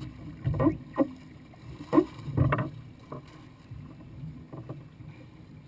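Lake water slapping and splashing against the upturned hull of a capsized jet ski, with several sharp splashes in the first three seconds.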